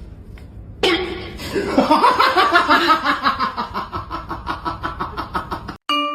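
A person laughing hard in quick repeated bursts, about five a second, slowly tailing off over about five seconds before cutting off abruptly.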